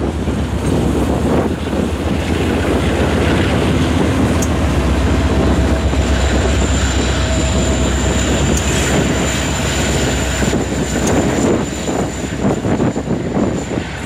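Freight train rolling on steel rails, then the deep engine rumble of the lead diesel locomotives, a CN SD75I and a BC Rail C44-9WL, heaviest in the middle stretch. A thin, steady high-pitched whine rides over the middle of it.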